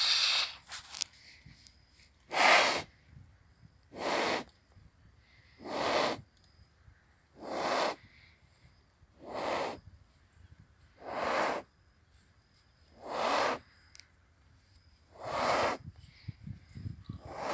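Heavy, regular breathing of a large animal lying restrained on its side: a loud, noisy breath about every two seconds, nine in all.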